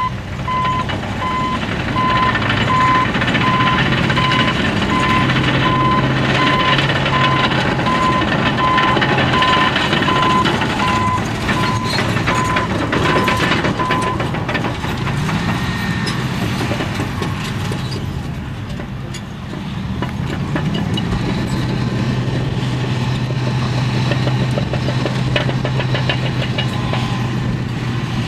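Caterpillar D10N bulldozer and 631E wheel tractor-scrapers running at work: heavy diesel engines with a steady drone that rises in pitch twice past the middle as they are worked harder. For the first half a backup alarm beeps about one and a half times a second, then stops. In the second half there is a rapid clatter, typical of a crawler's steel tracks moving.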